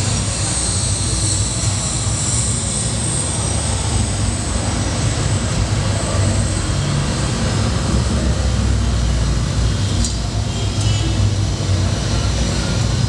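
Steady drone of propeller aircraft engines with a deep low rumble, played as part of a projection show's soundtrack.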